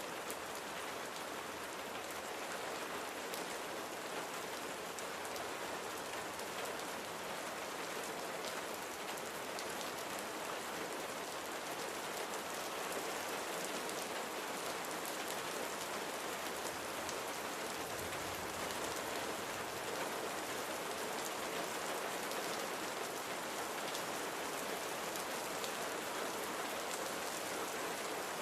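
Steady rainfall with many small drop ticks on a surface.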